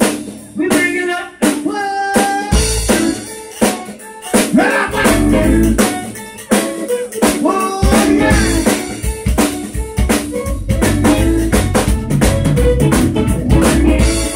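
Live zydeco band playing an instrumental passage: button accordion lead over a drum kit, electric bass and electric guitar, with a rubboard scraped in rhythm. The heavy bass comes in about two and a half seconds in and holds steady through the second half.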